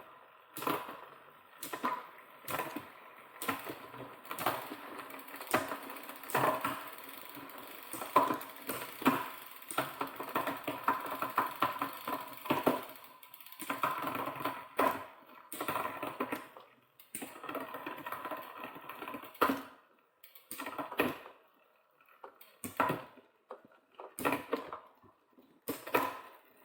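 Irregular clicks, knocks and metallic clatter of a bicycle chain being handled and fitted over the sprockets and rear derailleur while its length is checked.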